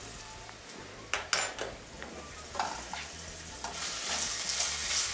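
Chopped onion and garlic frying in a little oil in a nonstick wok, stirred with a silicone spatula: a few light taps of the spatula, and a soft sizzle that grows louder over the last second and a half.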